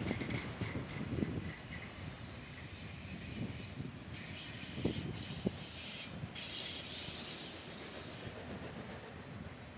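Freight train of autorack cars rolling past: a steady low rumble of wheels on rail with a few short knocks, and a high-pitched wheel squeal from about four seconds in until just past eight seconds, the loudest part.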